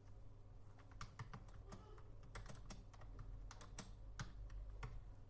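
Typing on a Logitech K480 Bluetooth keyboard: a run of irregular, fairly quiet key clicks.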